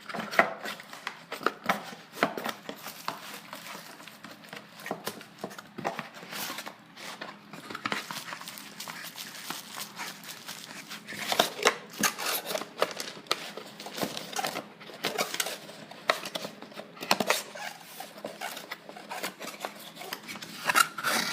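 Bubble wrap and plastic packaging crinkling and rustling as it is handled and pulled off an AC adapter, with irregular crackles and clicks throughout.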